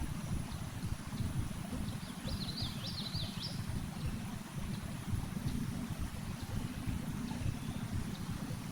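Steady low rumbling noise, with a quick run of high bird chirps lasting about a second, a little over two seconds in.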